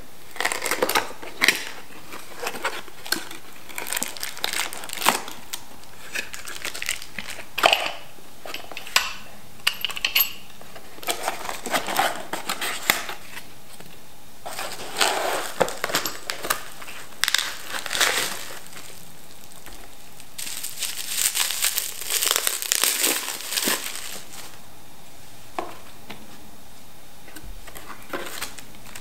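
A coffee grinder being unboxed: cardboard flaps and plastic wrapping rustling and crinkling in irregular bursts, with a few sharp clicks as parts are handled.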